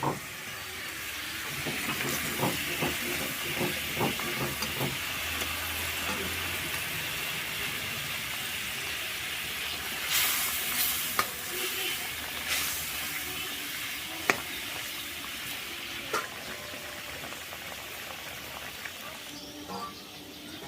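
Pieces of bata fish sizzling in a pan of hot spiced mustard gravy, a steady hiss broken by clicks and scrapes of a spatula stirring against the pan. The sizzle eases off near the end.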